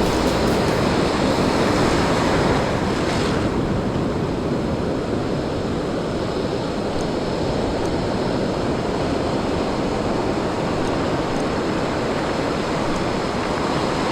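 Ocean surf washing up the beach in a steady rush, with wind buffeting the microphone; the higher hiss eases off about three seconds in.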